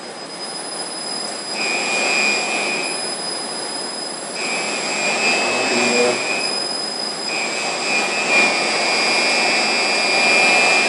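Electric hoist whining in three runs of a couple of seconds each as it lifts the upper half of a foam-lined shipping case, over a steady background hiss.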